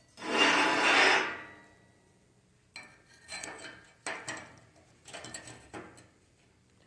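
A caliper being slid open and closed on a plasma-cut steel part: one loud scraping slide lasting about a second, then several shorter scrapes and knocks as the jaws are set against the part.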